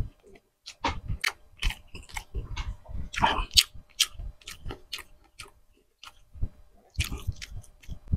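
A person chewing a mouthful of grilled tuna jaw meat, giving irregular mouth clicks about two or three a second, with a pause of about a second and a half near the end.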